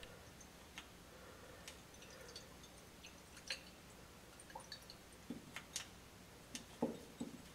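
Burette titrant dripping into an Erlenmeyer flask, added a little at a time near the titration endpoint, with light clicks from the stopcock and glassware. Faint scattered ticks and drips that come more often in the second half.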